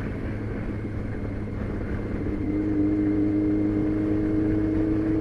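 Motorcycle engine running steadily at highway cruising speed, with wind noise. About halfway through, a steady engine hum comes up and gets slightly louder.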